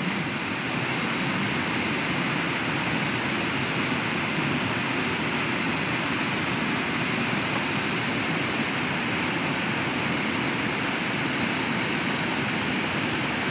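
Steady, even rushing noise of river water, with a thin high steady tone above it.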